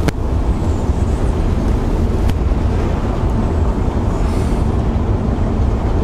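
Steady low rumble of a car driving, engine and tyre noise heard from inside the cabin, with a sharp click right at the start and another about two seconds in.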